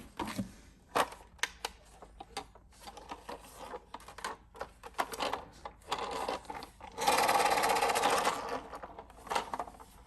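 Irregular plastic clicks and clatter from a toy minicar being handled, with a denser rattle lasting about a second and a half from about seven seconds in.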